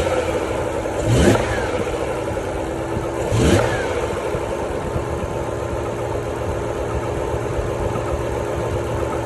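BMW E60 M5's S85 V10 engine idling, revved briefly twice, about a second in and again about three and a half seconds in, with a steady whine running under the idle throughout.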